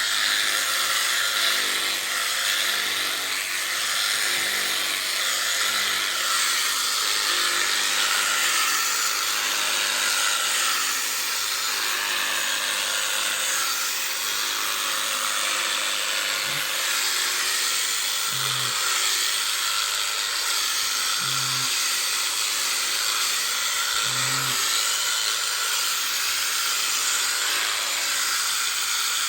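Electric sheep-shearing clippers running steadily with a constant high buzz as they cut through the fleece.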